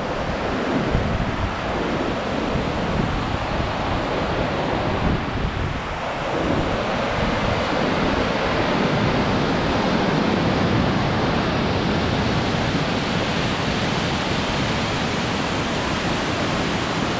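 Whitewater rapids of the Hvítá river rushing through a narrow basalt gorge: a steady, loud rush of water.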